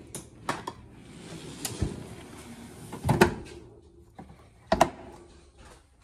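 A fridge tilt-slide being tilted back up and pushed home on its metal runners: a rolling rush of slide noise with a few clicks, then two loud metallic clunks, about three seconds in and just under five seconds in.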